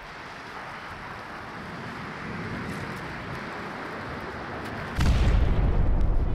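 Sound-designed war-zone effects: a steady hiss-like noise swelling slowly, then a sudden deep explosion about five seconds in that rumbles on.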